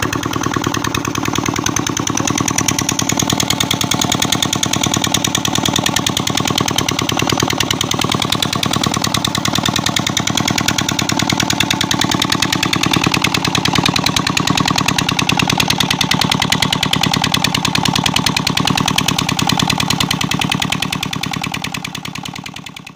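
25 hp KAM stationary diesel engine running steadily under load, driving a water pump through a flat belt, with a rapid even beat. The sound fades out near the end.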